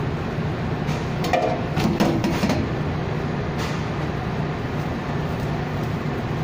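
Steady hum of bakery kitchen machinery and ventilation, with a few short clatters and knocks about one to two and a half seconds in and one more a second later.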